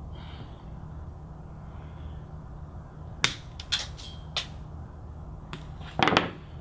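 Hand cutter snipping the ends of the Cat6 cable's conductors to trim them to length: a handful of sharp snips about halfway through, the loudest near the end.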